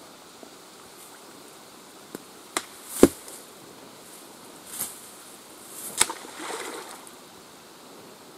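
Wooden pole being worked through grass and shallow lake water: a few sharp knocks, the loudest about three seconds in, and a brief splashing rustle just after the six-second mark.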